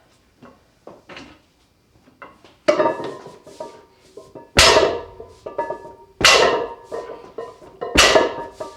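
Loaded barbell coming down on the floor during deadlift reps: four heavy metallic clanks about every one and a half to two seconds, the plates ringing after each. Before them there are a few faint clicks.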